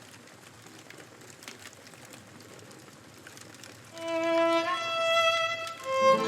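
Campfire crackling softly with small pops. About four seconds in, a violin comes in over it, playing slow held notes.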